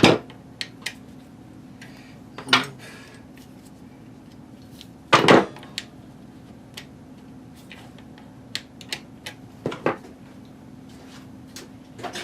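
Metal Allen wrenches clinking and clattering as they are handled and sorted through, with a few louder knocks and scattered light ticks.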